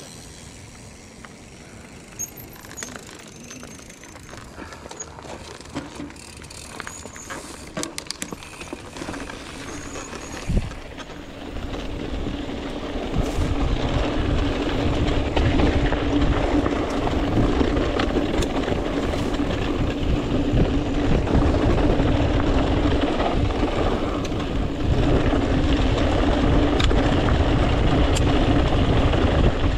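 Hardtail mountain bike being ridden. For the first ten seconds it rolls fairly quietly with scattered clicks and rattles. From about eleven seconds in, a loud steady rush of wind and tyre noise with a steady hum takes over as the bike picks up speed.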